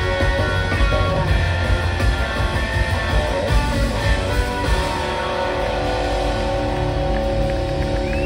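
Live rock band playing with electric guitar to the fore over drums. About five seconds in, the beat drops away and the band holds a sustained chord.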